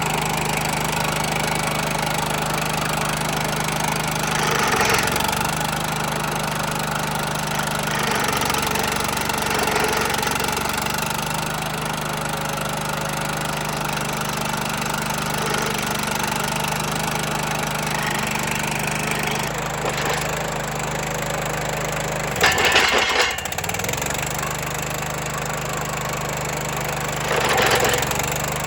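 Vermeer SC30TX stump grinder running steadily while its cutting wheel chips into a stump, with a few short louder bursts of wood chipping where the engine note dips under load, the loudest a little past two thirds of the way in.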